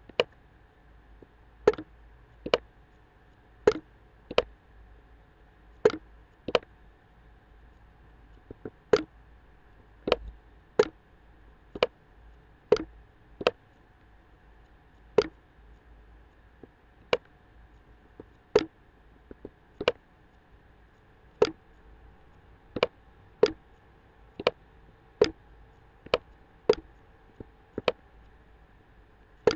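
Computer mouse button clicks, sharp single clicks at about one a second, unevenly spaced, over a faint steady electrical hum.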